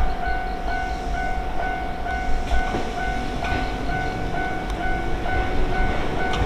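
Japanese level-crossing warning bell ringing steadily, about two dings a second, over the rumble of a passing train on the Ryutetsu Nagareyama Line, with a few sharp clicks.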